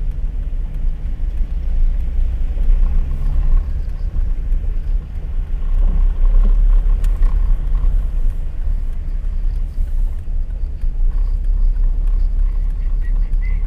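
Steady low rumble of a Ford car's engine and tyre noise on a wet street, heard from inside the cabin while driving slowly.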